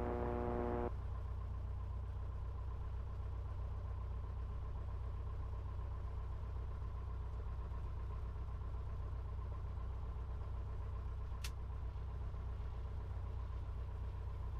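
Light aircraft piston engine idling steadily, a low even hum, with the airplane on the ground waiting to taxi.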